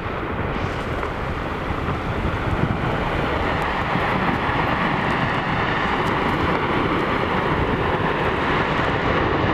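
Glacier ice front calving into the sea: a steady, deep rumbling roar of ice collapsing into the water.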